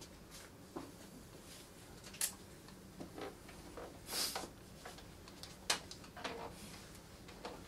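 Sparse quiet clicks and knocks, with a short rustle about four seconds in, as a player sits down on a wooden chair with an acoustic guitar in a small room.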